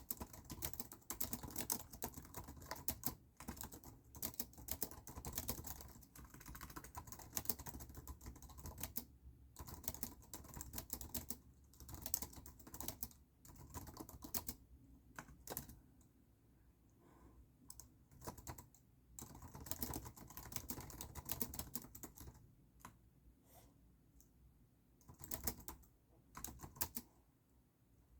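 Typing on a computer keyboard: fast runs of keystrokes broken by short pauses where only a few keys are struck.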